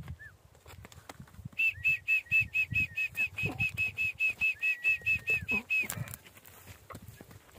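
A bird calling: a fast run of short high notes, about five a second, for some four seconds, with a long level whistle near the end of the run.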